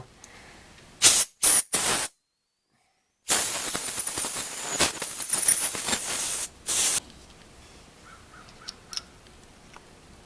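Aerosol carburetor cleaner sprayed onto a chainsaw carburetor: three short hissing bursts, then a longer spray of about three seconds and one more short burst.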